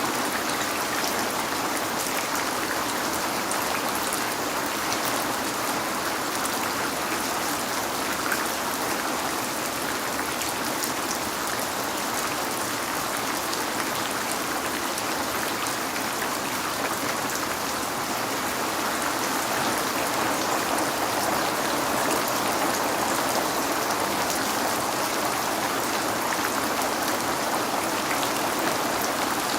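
Steady rain falling and pattering on a window, a continuous even hiss with scattered fine drop ticks.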